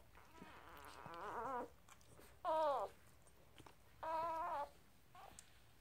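Newborn puppies, two days old, squealing three times as they nurse. The first cry is long and quavering, the second short and falling, and the third held level.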